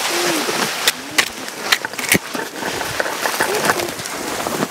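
Brushing through spruce branches while climbing on foot: a steady rustle of needles and clothing with footsteps and several sharp snaps, the loudest about one and two seconds in.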